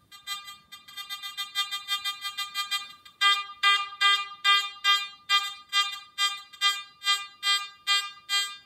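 Garrett AT Max metal detector with an NEL Tornado coil giving repeated electronic beeps as a target is swept back and forth over the coil. The beeps are fainter and quicker at first. About three seconds in they become strong, even beeps at about two a second, each marking a detection at roughly 9¾ to 11½ inches in this air test.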